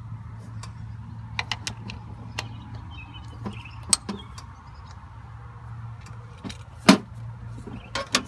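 Scattered metallic clicks and clinks of a wrench working on the mounting bolts of a John Deere 4440's air-conditioning compressor, the sharpest knocks about four and seven seconds in, over a steady low hum.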